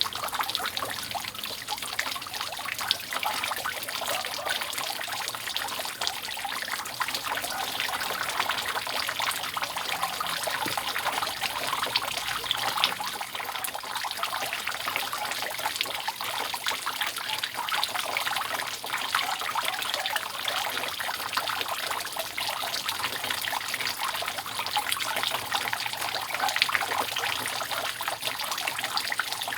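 Water dripping and trickling continuously off a roof, many drops at once in a dense, steady patter.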